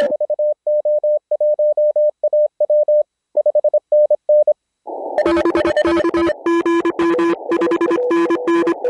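Morse code (CW) from an Elecraft K3 transceiver: a single steady-pitch tone keyed on and off for about four and a half seconds, then about five seconds in several Morse signals at different pitches come through together over receiver hiss.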